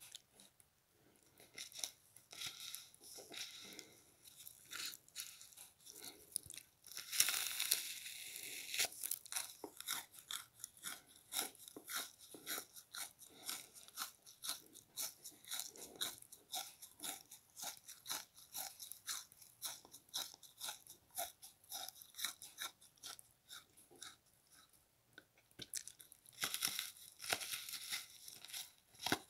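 A frozen pink bath sponge being bitten and chewed: a run of crisp crunches, about two a second, with louder, denser crunching about seven seconds in and again near the end.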